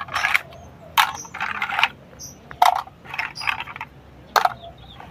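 Hard plastic toy animal parts clicking and clattering as they are picked through and set down on hard ground: a string of separate sharp knocks, some in short rattling clusters.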